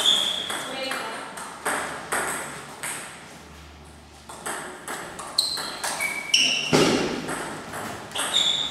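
Celluloid-plastic table tennis ball clicking off paddles and the table in a fast doubles rally, with brief high squeaks in between. The hits pause for about a second and a half near the middle, then resume.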